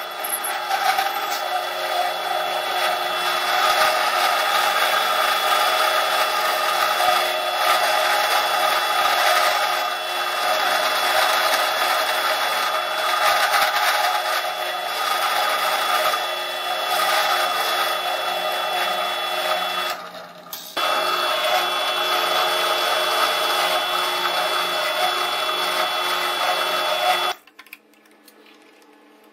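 Bench drill press motor running steadily while its cutter mills a white plastic block held in a cross slide vise, a continuous machining whine with a cutting hiss. It drops out briefly about two-thirds of the way through and cuts off suddenly near the end.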